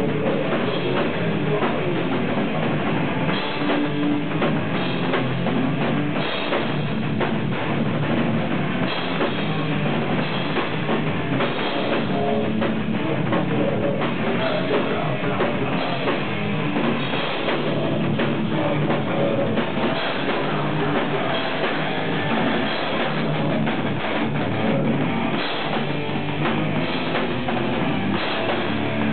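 A rock band playing live: distorted electric guitar, bass guitar and a drum kit in a loud, steady, unbroken wall of sound.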